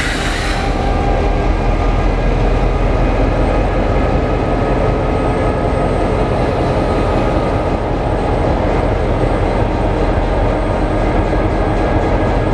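Diesel locomotive running as it moves slowly past along the platform, a loud, steady engine sound with a faint whine above it. A brief hiss sounds right at the start.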